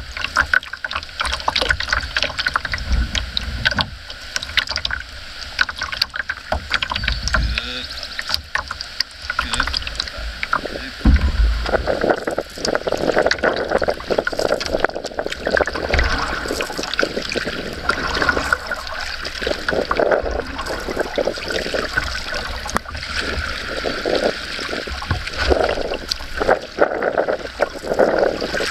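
Canoe paddling: a wooden paddle dipping and pulling through the water, with water splashing and lapping along the wooden hull, and occasional low bumps.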